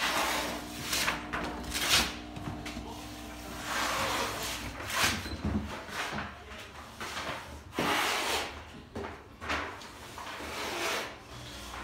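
Handling noise from a handheld phone being moved while filming: irregular rubbing swishes every second or two, over a low steady hum.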